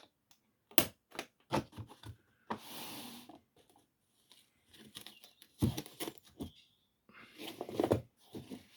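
A rusty case being opened by hand: a run of sharp clicks and knocks as it is worked at, with a longer scraping, tearing-like noise lasting about a second, a little over two seconds in, and more knocks and handling noise near the end.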